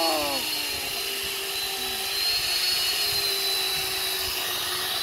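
Chainsaw running steadily at high speed, with a high whine that wavers slightly in pitch.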